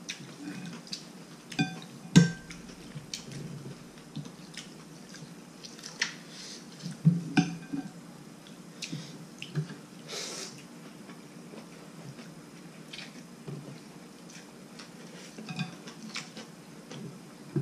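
Chopsticks and a spoon clinking and knocking against a large bowl of noodles during eating: scattered light clicks, a few with a short ringing tone, the loudest about two seconds in and around seven seconds.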